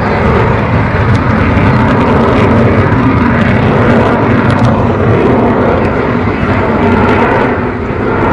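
Avro Vulcan XH558's four Rolls-Royce Olympus turbojets: loud, steady jet engine noise as the bomber flies its display, easing slightly near the end.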